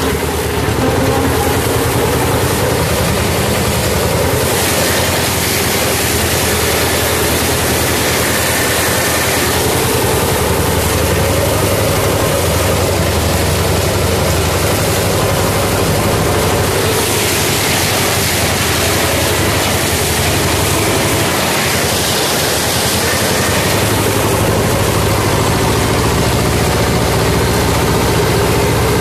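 T-25 tractor's two-cylinder air-cooled diesel engine running steadily while mowing, heard from the driver's seat. A steady low drone, with a hiss on top that swells and fades a few times.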